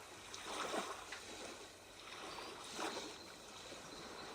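Soft sea sounds: waves washing in a gentle, steady wash that swells briefly a couple of times.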